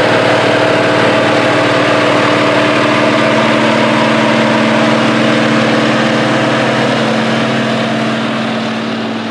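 John Deere WA-14 four-wheel-drive tractor's diesel engine running steadily under load while pulling a plow, a constant drone that fades a little near the end as the tractor passes.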